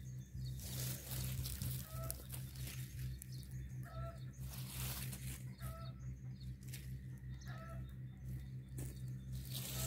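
Dry sticks and branches rustling and crackling as they are picked up and gathered, while a bird gives a short clear call about every two seconds, over a low steady hum.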